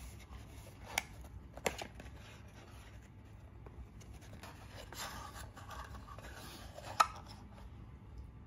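Small kraft-cardboard box being handled and opened by hand: three light, sharp taps, about one second, just under two seconds and seven seconds in, the last the loudest, with soft rustling and scraping between.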